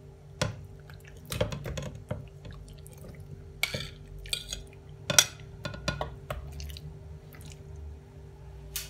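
Raw cubed chicken breast pushed off a ceramic plate with a metal utensil into a plastic food-processor bowl: scattered clinks and scrapes of metal on china, with soft wet squishes of the meat. A faint steady hum runs underneath.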